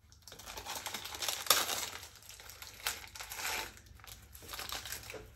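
Crinkling and tearing of a syringe's plastic wrapper being opened by hand, irregular crackles with a sharp crack about one and a half seconds in.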